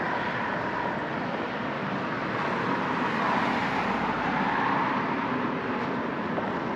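Steady road traffic noise from vehicles on the highway bridge, swelling a little a few seconds in as a vehicle passes.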